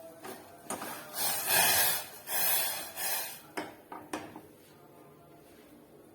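Fresh guava leaves being torn apart by hand: three short rasping rips about a second in, with a few light clicks around them.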